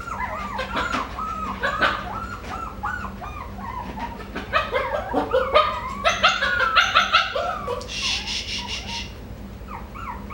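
Coton de Tulear dog whining and yipping over and over in short rising-and-falling cries, sharper and louder about halfway through, with a brief raspy noise near the end. It is crying for attention.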